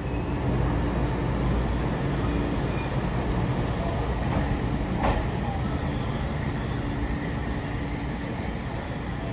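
Hiroshima Electric Railway trams at a station platform: a steady low rumble of tram running noise with a faint held hum, and a single sharp click about five seconds in.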